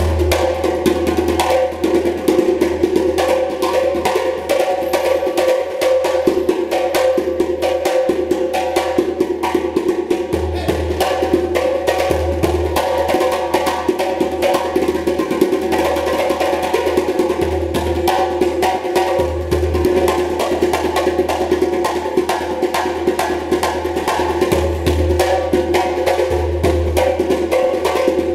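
Fast hand drumming on a djembe, a dense, unbroken stream of slaps and tones.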